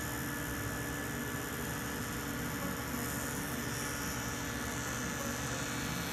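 Table saw with a dado stack running steadily, a constant whirring hum, as a board is fed along the fence to cut a stopped groove.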